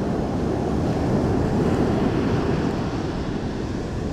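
Ocean surf washing onto the beach, with wind buffeting the microphone; the rush of the waves swells a little in the middle.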